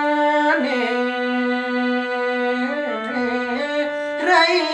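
Nepali folk song sung live with instrumental accompaniment. The singer holds one long steady note on the word 'bhane' for about two seconds, then moves to a higher phrase near the end.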